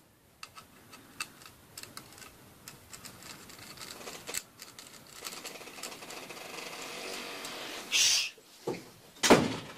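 Small clicks and scraping of two dipole antennas being screwed onto a wireless PCIe card's threaded connectors, with two louder rustling bumps of handling near the end.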